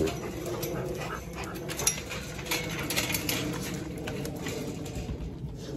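Rottweilers whining, a thin drawn-out sound that runs on with small breaks, as they wait to be fed chicken passed over the kennel fence.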